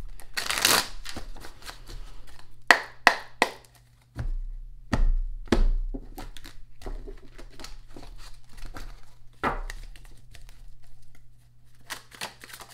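A deck of oracle cards being shuffled by hand: irregular slaps, flicks and swishes of the cards, some with a dull thump against the table or the hands.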